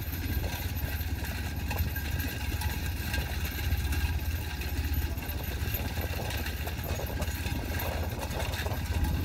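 A motor vehicle's engine running steadily at a low drone, with the light clatter of a pair of bullocks' hooves and a racing cart's wheels on a dirt track.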